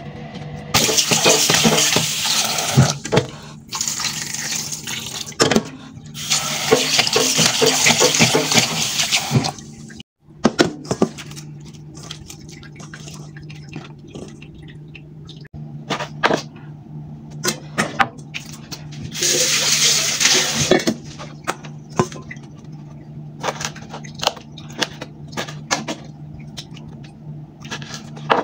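Kitchen tap running into a stainless steel sink in several bursts, three in the first ten seconds and one more about two-thirds through, as fish is rinsed. Between the bursts, knife and bowl knocks and clinks on the plastic cutting board, over a steady low hum.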